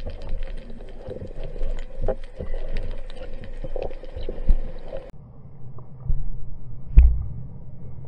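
Underwater sound heard through a camera housing: muffled water sloshing and gurgling with scattered clicks and knocks. After about five seconds the higher sounds drop away, leaving a low rumble, with one sharp knock near the end.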